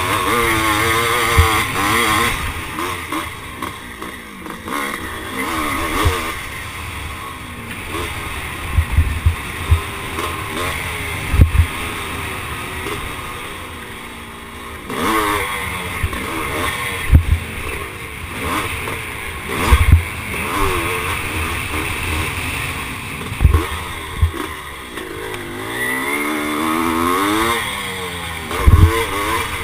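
1978 Husqvarna CR390 single-cylinder two-stroke motocross engine under hard racing throttle, its pitch rising and falling again and again through the gears. Several short low thumps break in along the way.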